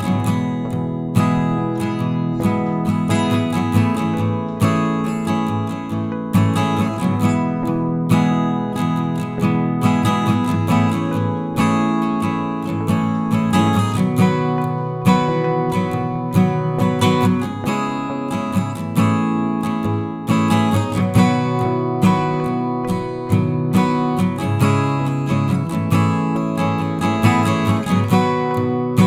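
Background music: a strummed and plucked acoustic guitar piece with a steady rhythm.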